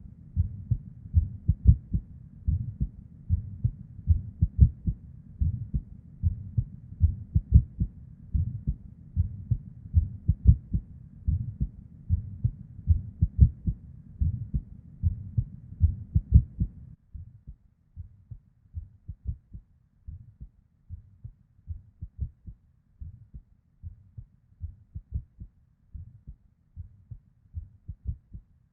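A woman's heartbeat heard from inside the chest, beating irregularly with ectopic (premature) beats and a whooshing murmur of blood flow between the thumps. About two-thirds of the way through, the background hum drops away and the beats become quieter.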